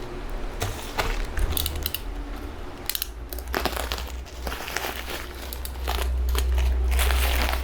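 Plastic packaging crinkling and crackling in irregular bursts as items from an online-shopping parcel are handled, over a low rumble that grows stronger near the end.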